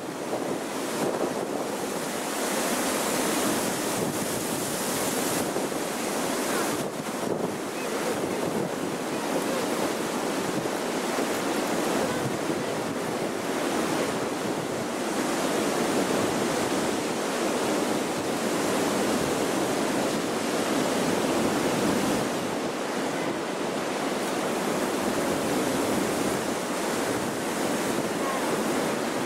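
Strong wind blowing, a steady rushing noise that swells in a gust a few seconds in.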